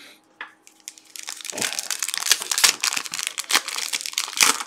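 Foil trading-card pack wrapper crinkling and tearing as it is ripped open and handled, a dense run of crackles starting about a second in.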